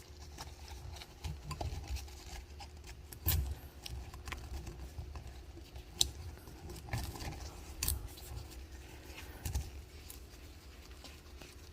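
Light handling noises from a plastic oil filter housing while its rubber O-ring is fitted: soft rubbing with a few sharp clicks and taps scattered through.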